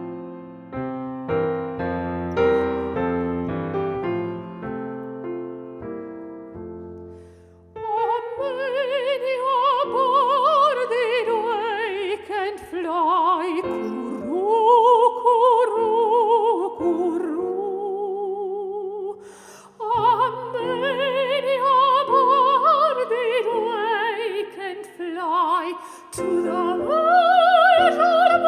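Soft piano introduction, then about eight seconds in a soprano voice enters, singing a slow carol melody with wide vibrato over the piano accompaniment.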